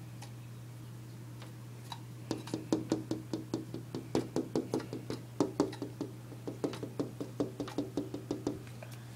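Northern cardinal pecking at a glass patio door: a rapid run of sharp taps, about five a second, starting about two seconds in and stopping shortly before the end.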